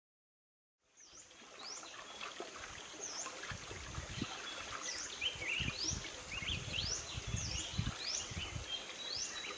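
Stream-side outdoor ambience that starts about a second in: a bird calling over and over with quick high notes that sweep up and down, over a steady wash of running water, with low splashing thuds of feet wading through shallow water.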